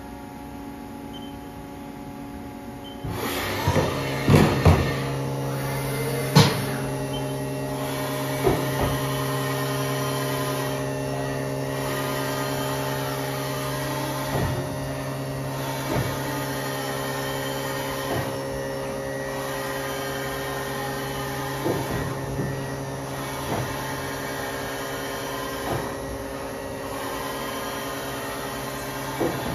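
Haas VF-6/40 CNC vertical machining center running: a steady machine hum with several held tones comes on about three seconds in, with sharp metallic clunks now and then as its axes move, the loudest in the first few seconds after start-up.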